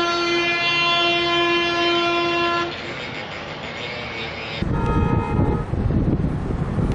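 A bus horn holds one long steady note that stops about two and a half seconds in. About four and a half seconds in, a loud low rushing noise sets in suddenly, with a second, higher horn note for about a second.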